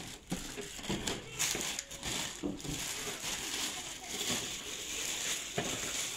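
Clear plastic packaging bag crinkling and rustling in irregular bursts as hands pull it off a printer, with one sharper knock about five and a half seconds in.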